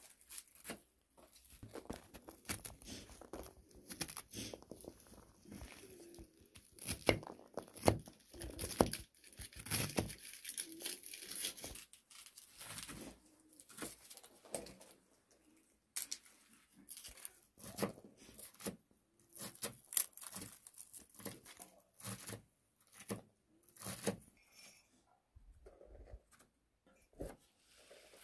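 Irregular handling noise: rustling, crinkling and tearing sounds with scattered sharp clicks and knocks, coming in uneven bursts.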